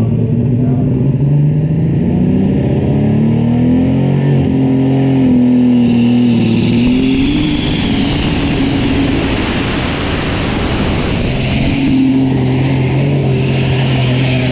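Super stock pulling tractor's turbocharged diesel engine revving hard under load, its pitch climbing and then holding, with a thin high whine rising about halfway through.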